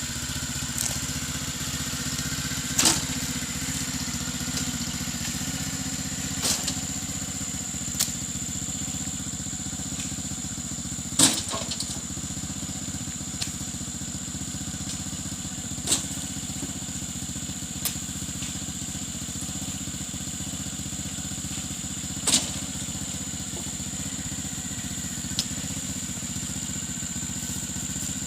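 Small engine of a motorized oil palm fruit hauler running steadily, with a sharp knock every few seconds and a steady high whine above it.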